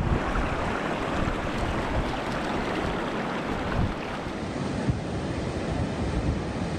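Steady rush of sea surf breaking on a sandy beach, with gusts of wind buffeting the microphone.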